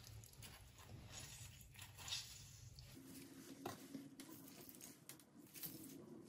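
Faint squishing of a lime being squeezed by hand, with soft wet ticks as juice drips into a steel bowl of guacamole.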